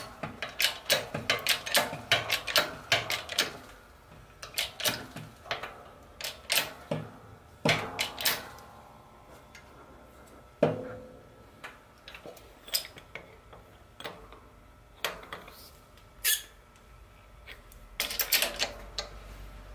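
Hydraulic shop press at work, pressing a steering knuckle and wheel bearing onto the hub: a run of sharp metallic clicks and clanks, densest in the first few seconds, with one louder clank that rings briefly about ten seconds in.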